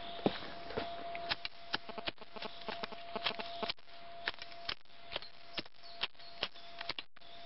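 Irregular sharp clicks, about two to four a second, over a faint steady high tone.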